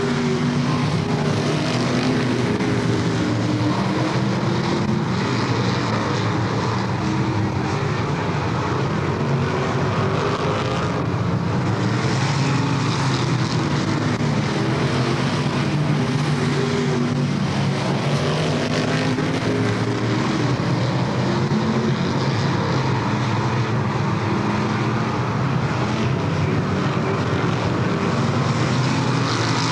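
Several dirt modified race cars' V8 engines running at racing speed around a dirt oval, their engine notes overlapping and rising and falling as the cars come past and go away.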